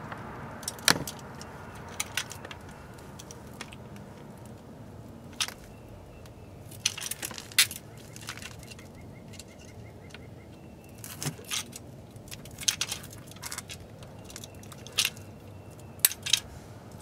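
Metal and plastic parts of a removed car window regulator (rails, cable and fittings) being handled and worked with pliers. The sound is scattered sharp clicks and clinks, several in quick succession at times, over a low outdoor background.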